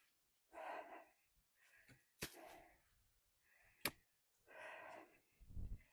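Faint, short puffs of a person's breath, about six of them, with two sharp clicks in between.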